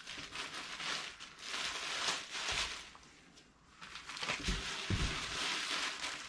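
Thin plastic bag rustling and crinkling as it is pulled off a machine, in several spells with a short lull about halfway. A couple of dull thumps come just after the lull.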